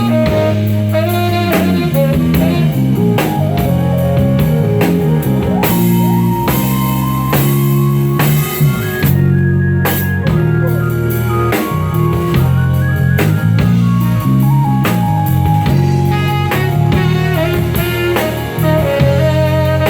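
Band playing instrumental music, with a drum kit keeping a steady beat under bass and melody notes, during a sound check.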